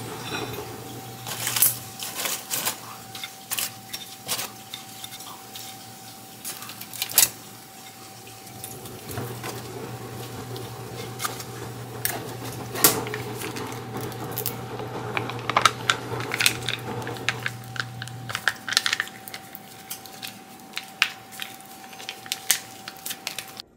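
Long cooking chopsticks clicking and tapping against a ceramic plate as pieces of fried chicken are set on it, in quick irregular knocks. A low steady hum sits under the clicks and stops about three-quarters of the way through.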